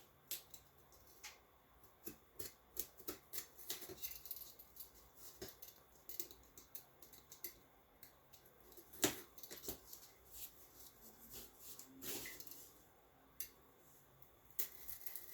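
Box cutter slicing through cardboard packaging: an irregular run of short scratches and clicks, with a few louder strokes, the strongest about nine seconds in.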